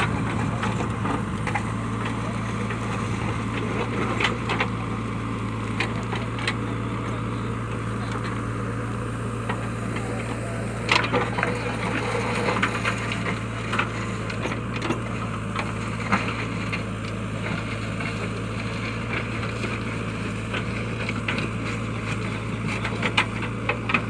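JCB backhoe loader's diesel engine running steadily, with scattered knocks and crunches as its bucket works the soil; the sharpest knocks come about eleven seconds in.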